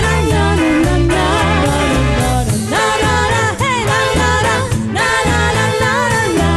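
Band music: a repeating bass line and drums under a lead melody that slides and wavers in pitch.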